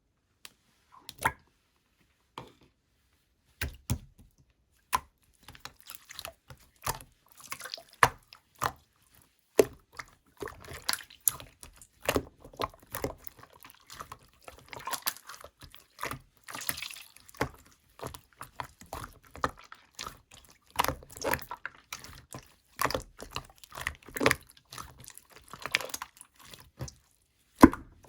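Thick slime with gold pearl powder being squished and pressed by hand, giving irregular wet clicks and pops. They are sparse for the first few seconds, then come thick and fast.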